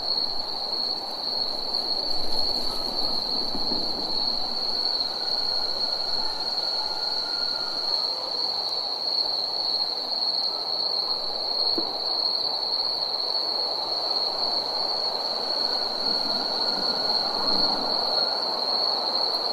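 Night ambience: a steady, unbroken high-pitched insect trill, as from crickets or katydids, over a low even rushing noise.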